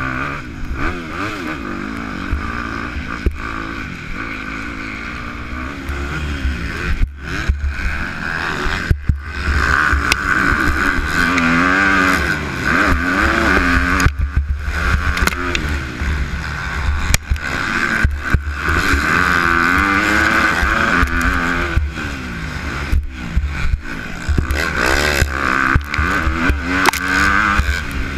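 250 cc motocross bike engine revving up and down hard as the rider accelerates, shifts and backs off through the track's turns and hills. A steady low wind rumble on the helmet camera's microphone runs under it.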